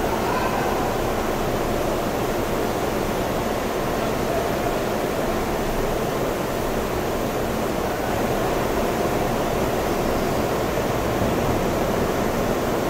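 Electric arc furnace running: a loud, steady rushing noise with a rough, rapidly flickering texture and no clear tone.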